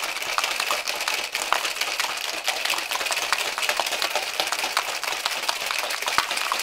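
Ice rattling hard inside a metal cocktail shaker tin filled all the way up with ice, shaken vigorously and without pause: a dense, continuous clatter of rapid clicks, with the ice flipping through the tin to chill the drink.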